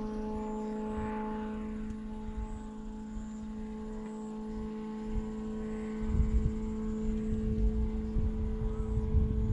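A steady low drone holds one unchanging pitch throughout. From about six seconds in, wind buffets the microphone in low rumbling gusts.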